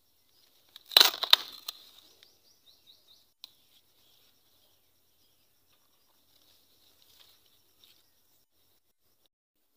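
Leafy plant stems and foliage rustling and snapping close to the microphone in one brief loud burst about a second in, then faint high chirping in the background.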